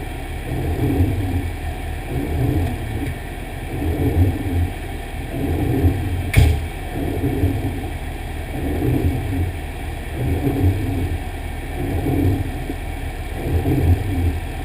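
Fire engine running, a steady low rumble that pulses about once a second, with a single sharp click about six seconds in.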